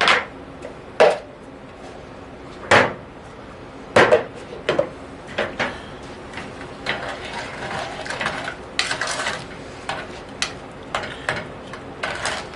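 Kitchen utensils knocking and clinking against a sauce pot and bowls: four sharp knocks in the first few seconds, then a string of lighter clinks with some scraping.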